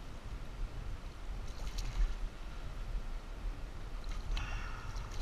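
Creek water running, heard as a low, muffled rumble through an action camera's housing, with a couple of brief splashy or rustling sounds.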